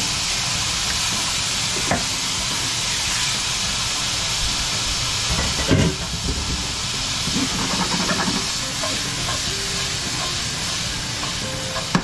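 Steady sizzling hiss of two frying pans over high heat, one of edamame and one of mackerel simmering in miso broth, as their liquid boils off. A sharp knock comes about 2 seconds in and a louder one near 6 seconds, followed by a few lighter knocks.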